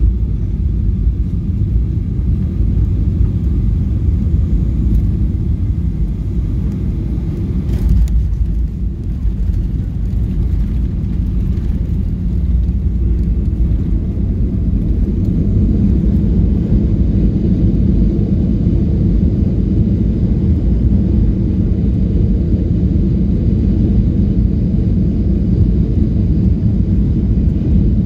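Cabin noise of a Boeing 737-800 landing: a loud, steady, low rumble from the engines and airflow. About eight seconds in there is a brief jolt as the wheels touch down, then a heavier rumble as the plane rolls out on the runway.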